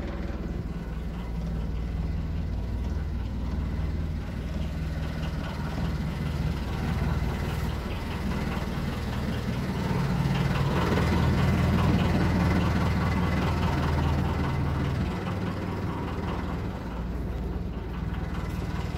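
Motor cruiser's inboard engine idling with a steady low hum, louder for a few seconds around the middle.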